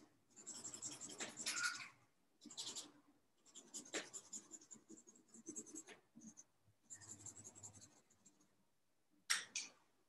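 Pencil scratching on paper in bursts of quick shading strokes, stopping and starting, with two sharper, louder strokes near the end.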